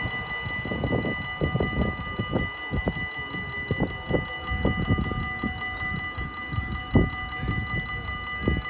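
Level-crossing warning bell ringing steadily while the barrier arms rise, the bell still sounding until the barriers are fully up. Irregular low rumbling thumps, like wind on the microphone, run underneath.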